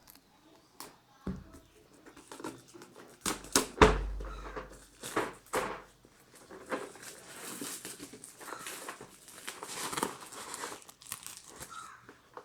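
Packaging being crinkled and torn open while a boxed tool set is unpacked, with irregular clicks and handling noise and a sharp knock about four seconds in.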